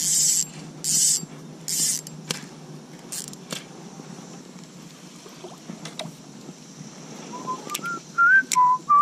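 A person whistling a few short, wavering notes that begin about seven seconds in. Earlier come three short hissing bursts about a second apart and a few light clicks, over a steady low hum.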